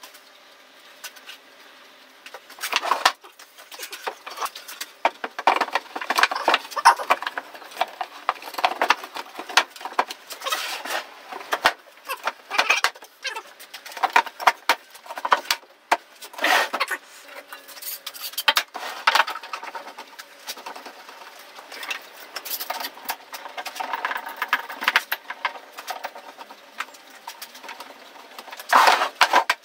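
Pine panels and rails being handled and pushed together during a glued assembly, with irregular wooden knocks, scrapes and rubbing; clamps going on near the end.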